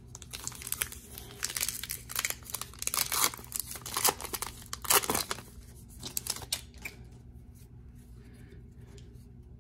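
A baseball card pack's crimped wrapper being torn open and crinkled by hand: a run of irregular crackles and rips that thins out after about six seconds.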